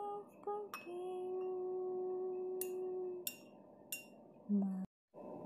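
Intro jingle: a steady, pure held tone with three bright chime-like sparkle hits near its end, then a short lower note that cuts off suddenly.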